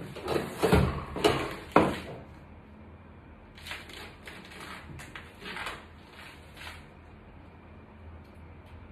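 Platform high heels knocking a few times on a hard tile floor, then softer rubbing and rustling of glossy patent thigh-high boots as the legs are crossed.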